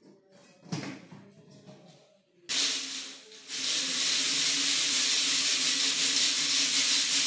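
Crushed aggregate being shaken by hand in a covered brass 2.36 mm test sieve on its pan. A faint clink comes as the lid is seated, then a steady rush of grit and fine dust starts suddenly about two and a half seconds in. This is the sieving of the hammered sample in an aggregate impact value test, which separates the fines passing 2.36 mm.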